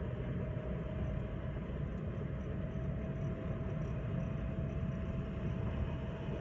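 Chevrolet Spin 1.2 car driving at steady speed: a continuous low drone of engine and tyre noise, with a thin steady hum running through it.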